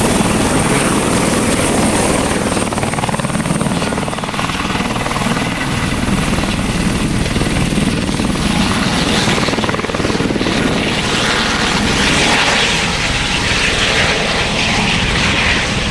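Airbus H130 helicopter taking off from the hover and flying away: steady loud rotor and turbine noise, with a thin high turbine whine that fades out about halfway through as it leaves.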